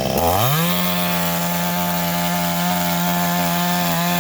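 T-Maker two-stroke gasoline chainsaw revving up sharply to full throttle just after the start and holding a high, steady engine pitch.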